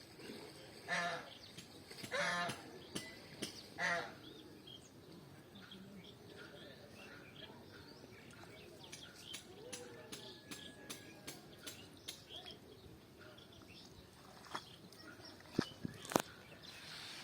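An animal calling in short, harsh cries, three of them about a second and a half apart in the first four seconds. A faint outdoor background follows, with a few sharp knocks near the end.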